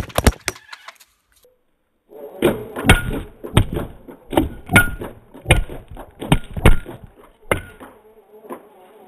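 Hand-cranked slingshot gatling firing table-tennis balls on full auto. A quick cluster of sharp snaps comes at the start. After a short pause come about nine hard knocks roughly two-thirds of a second apart as the balls strike close by.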